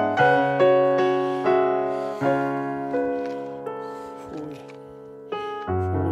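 Slow, soft piano music: single notes and chords struck one after another and left to ring. It grows gradually quieter, then a louder low chord comes in near the end.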